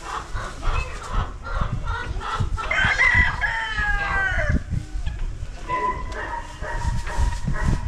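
A rooster crowing: one long call falling in pitch, the loudest sound, about three seconds in, with a second, steadier drawn-out call near the end. Chickens cluck around it, and there are low knocks and bumps throughout.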